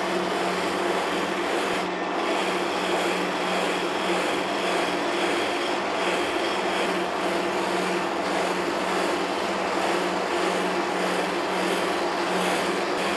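Soft cotton buffing wheel loaded with carnauba wax, spinning on a lathe and rubbing against a wooden bowl: a steady hiss of cloth on wood over the lathe's steady hum. This is the final buffing pass that brings up the wax finish.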